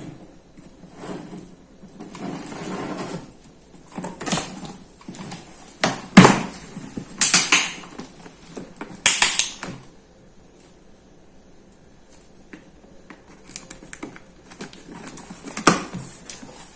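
Cardboard box being opened and its packing handled: irregular rustling and scraping with a few sharp knocks, the loudest about six seconds in, and a quieter stretch after about ten seconds.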